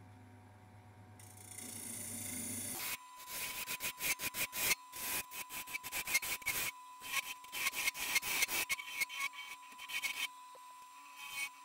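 Wood lathe turning a sapele blank while a hand-held turning tool cuts it: a soft hiss gives way about three seconds in to fast, irregular scraping strokes as the tool bites and throws off shavings, with a short lull near the end.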